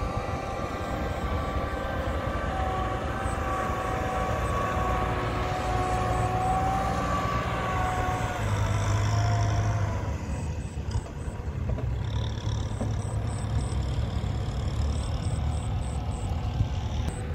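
Diesel engines of heavy farm machinery running: a steady low rumble, with a higher whining tone over it that fades out about ten seconds in.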